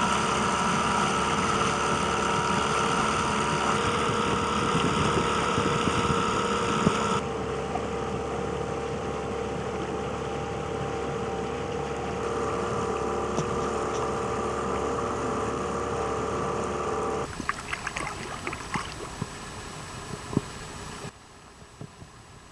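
Outboard motor of a small boat running steadily under way, its drone shifting pitch at about 7 and again at 12 seconds. About 17 seconds in the motor stops and a quieter stretch with scattered clicks follows.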